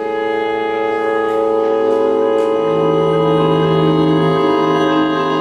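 Live chamber ensemble music: strings hold a sustained chord, a lower note joins about halfway through, and a few soft glockenspiel notes are struck with mallets in the first half.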